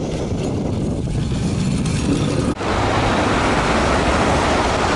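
Tram running along snowy street tracks, mostly a low rumble. About two and a half seconds in the sound cuts abruptly to steady road-traffic noise with more hiss, vehicles driving on a snowy street.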